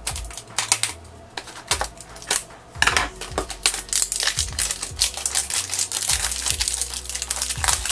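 Clear plastic shrink wrap crinkling and crackling as it is torn and peeled off a small plastic toy carrier box. The crackling is sparse at first and grows denser and louder about three seconds in.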